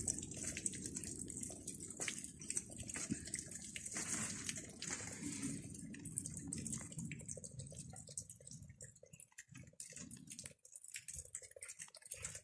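Rainwater dripping: scattered drops ticking over a soft hiss, faint throughout.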